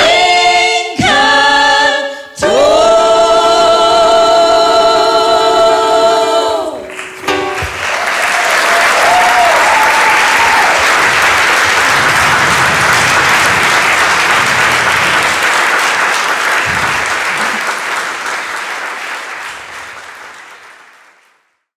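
Women singing the closing notes of a song, a couple of short notes and then one long held chord, followed by an audience applauding, the applause fading out near the end.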